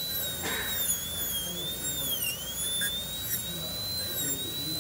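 High-speed dental air-turbine handpiece with a diamond bur, whining steadily as it cuts dry into a plastic typodont tooth with no water spray. Its high pitch wavers and dips briefly about two seconds in as the bur bites into the tooth.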